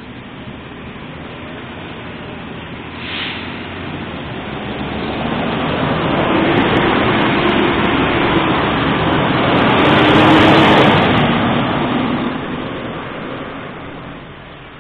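A road vehicle passes close by: its running noise with a steady hum builds over several seconds, peaks about ten seconds in with a short burst of high hiss, then fades away.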